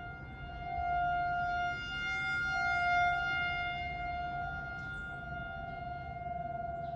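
Several Federal Signal 2001 rotating electromechanical warning sirens sounding a steady tone together during a tornado siren test. The level swells and fades as the rotating siren heads sweep past.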